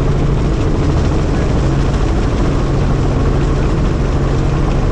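Helicopter running, a steady engine and rotor noise with a constant low hum.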